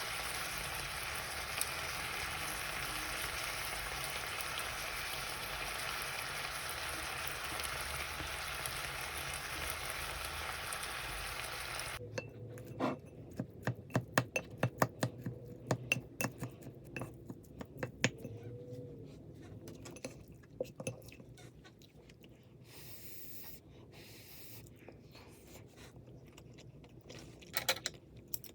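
Food sizzling in a frying pan, a steady hiss. About twelve seconds in it cuts off suddenly to a quick run of clinks and taps of utensils against dishes and a pan, then quieter handling.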